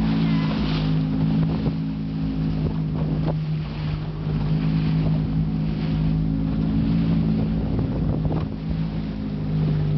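Motorboat engine running steadily with a constant low hum, under wind on the microphone and the hiss of water against the hull. The hum dips briefly twice, about three and eight seconds in.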